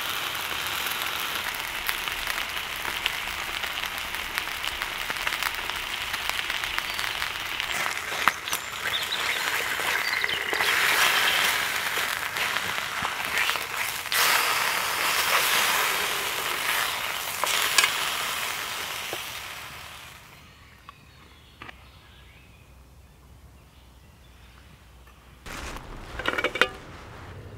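Slices of pork belly sizzling in a stainless steel frying pan over a small wood-burning stove, a steady frying hiss with small pops. The sizzle dies away about two-thirds of the way through, and a few short clatters follow near the end.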